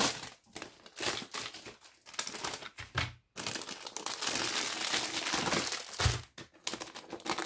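Clear plastic packaging crinkling as it is handled, in short bursts at first and then a longer stretch of steady crackle.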